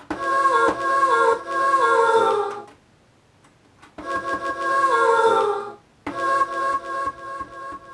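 A sampled sung vocal, choir-like, played back from a sampler in three chopped bursts. Each burst is a run of short notes stepping down in pitch, with a pause of about a second after the first.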